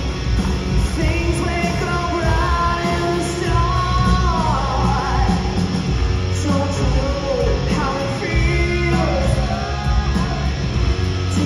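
Hard rock band playing live: distorted electric guitars, bass and a drum kit, with a lead melody that bends and wavers in pitch above them, heard through the stage PA.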